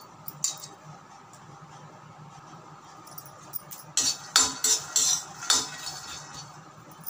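Metal spatula scraping and clinking against a steel kadai as it stirs roasting peanuts, in a quick run of rattling strokes about four seconds in.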